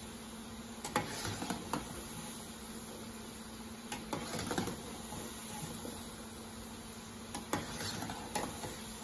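Shakarpara dough squares deep-frying in hot oil with a steady sizzle, stirred with a slotted metal spoon that scrapes and clinks against the pan in short clusters about a second in, around four to five seconds, and near the end.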